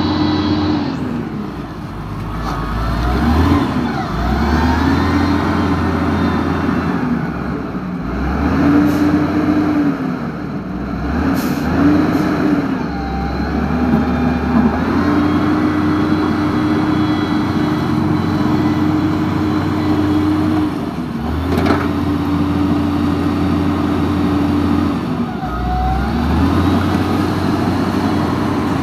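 Remote-control toy bulldozer driving on gravel: its electric drive motors and gearboxes whine, the pitch rising and falling again and again as it starts, stops and changes speed, with spells of low rumble in between.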